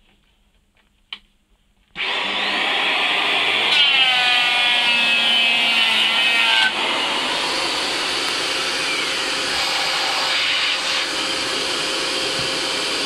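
Electric hand planer switched on about two seconds in, its cutter head running steadily as it shaves a wooden beam, throwing the chips out unextracted.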